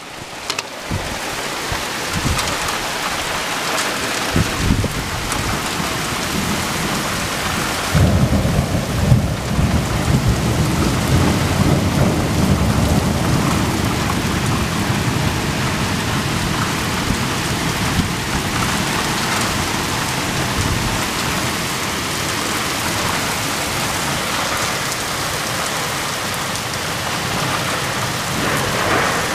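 Heavy rain pouring steadily, with thunder: a short low rumble about four or five seconds in, then a long rumble that breaks in about eight seconds in, loudest at its start, and slowly dies away over the next ten seconds.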